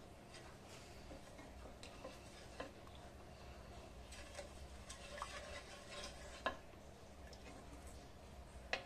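Wooden spatula stirring thick reduced milk in a steel kadai: soft scraping with occasional light ticks of the spatula against the pan, the sharpest about two-thirds of the way through and again near the end.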